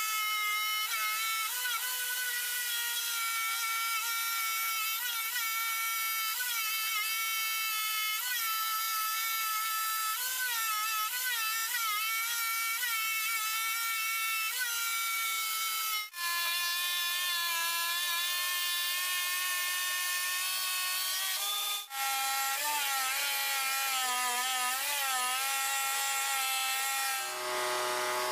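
Homemade scroll saw running and cutting through plywood: a steady motor whine whose pitch wavers slightly as the blade bites. The pitch drops abruptly three times, each time staying lower.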